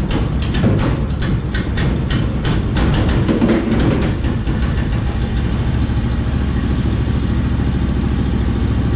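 Predator small gas engine on a long-tail mud motor running. A rhythmic clatter about three times a second over the first few seconds stops, and the engine then settles to a steady idle.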